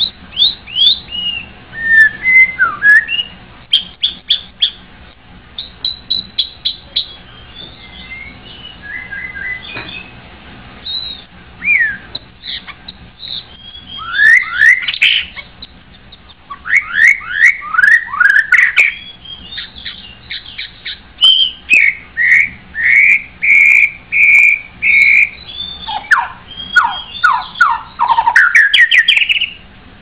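White-rumped shama singing a long, varied song of loud whistled phrases, with quick runs of sweeping notes, a row of steady held whistles in the middle, and sharp clicks between phrases.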